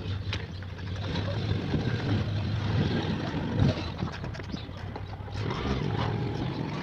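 A motor running steadily with a low hum that changes about five seconds in.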